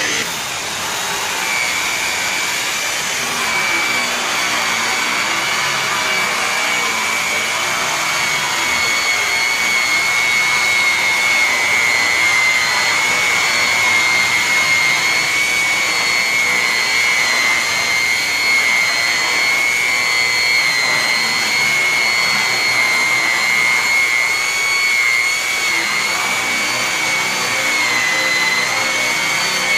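Makita electric rotary polisher running with a buffing pad pressed against an aluminum truck grill: a steady high motor whine over a rushing hum. The whine settles in about a second and a half in and dips slightly in pitch near the end.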